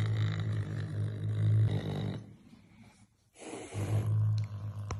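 Caracal growling: a low, steady growl that breaks off about two seconds in and starts again about a second later.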